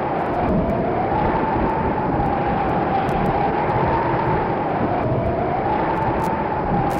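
Howling storm wind, a steady rush with a whistling tone that sags and rises again twice.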